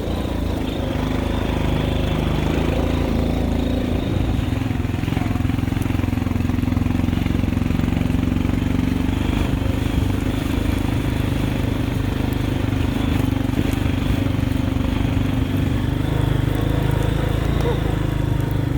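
ATV engine running steadily under way, its pitch holding fairly even with small rises and dips as the quad rides along the trail.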